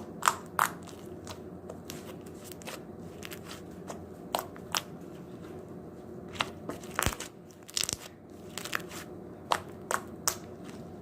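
Slime being squished and stretched by hand, giving irregular sharp clicks and pops, a dozen or so spread unevenly over the stretch.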